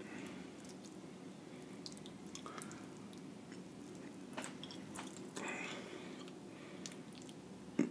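Faint, wet eating sounds: fingers lifting a butter-sauce-coated king crab leg out of a glass dish of seafood boil, with soft squelches, a few small clicks and some chewing.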